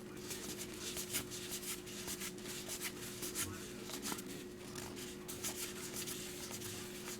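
2021 Topps Allen & Ginter X baseball cards flipped through by hand, the cards sliding and rubbing against each other in soft, irregular rustles and ticks.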